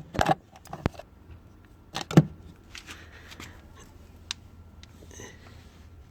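A series of sharp clicks and knocks, the loudest about two seconds in, over a low steady hum.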